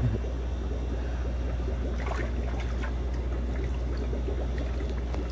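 Aquarium water bubbling and trickling steadily over a constant low hum, with a few faint splashes as a hand net is worked through a tote of water.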